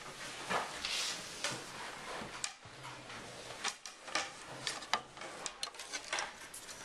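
Pencil and school supplies being handled on a wooden school desk: an uneven run of short clicks, scrapes and rubbing sounds.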